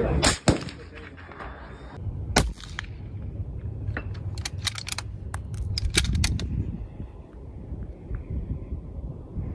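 Suppressed bolt-action rifle shots: a sharp report right at the start and another about two and a half seconds in, each followed by a short ring-off. A quick run of light sharp clicks follows around the middle.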